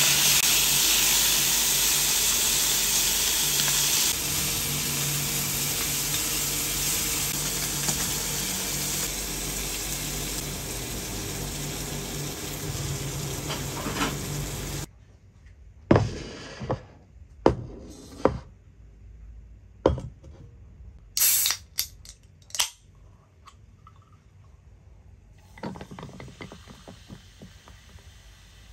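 Sliced meat sizzling loudly as it is stir-fried in a frying pan and turned with chopsticks, the hiss easing slightly over time. About 15 s in it stops abruptly, and a run of sharp clicks follows: chopsticks knocking against a bowl. Near the end comes a faint fizzing crackle as cola is poured over ice in a glass mug.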